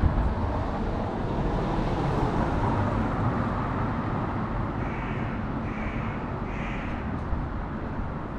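A crow cawing three times in quick succession about five seconds in, over the steady rumble of street traffic with a car driving past.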